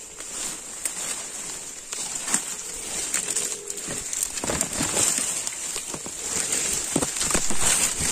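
Leaves and twigs rustling and snapping as someone pushes through dense undergrowth, getting louder from about halfway in, over a steady high drone of forest insects. A single low coo sounds about three seconds in.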